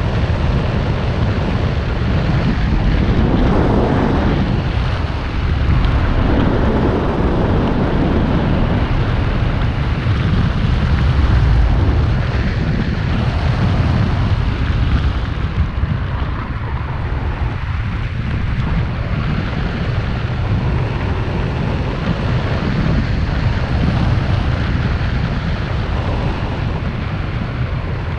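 Wind buffeting the microphone: a loud, steady rush with a deep low rumble that swells and eases in gusts.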